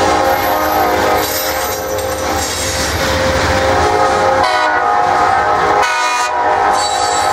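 A train horn sounding in long blasts over the steady rumble of freight cars rolling past.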